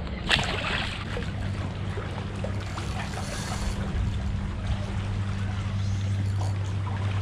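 Water lapping and trickling around a kayak, with a short splash about a third of a second in and a steady low hum underneath.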